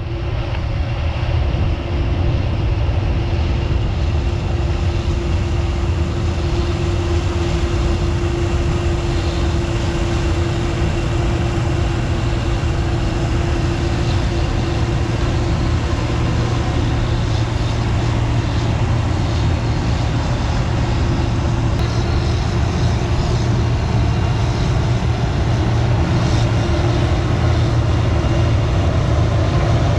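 Gleaner combine harvester running steadily under load while harvesting field corn: a constant low engine rumble with a steady hum above it.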